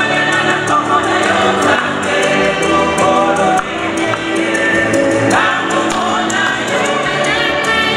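A church choir singing a lively hymn in several voices over a steady beat.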